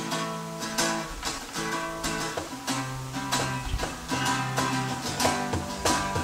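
Acoustic guitar playing chords in a steady rhythm.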